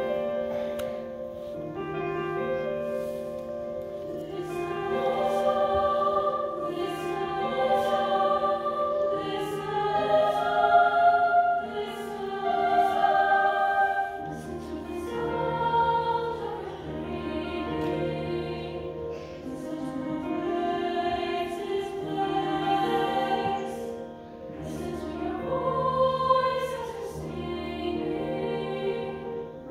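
Mixed youth choir singing a slow piece in parts, with long held chords that swell and fade phrase by phrase.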